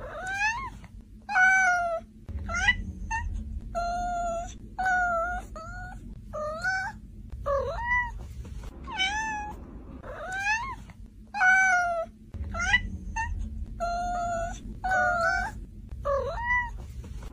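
Cat meowing over and over: short calls that rise and fall in pitch, about one a second.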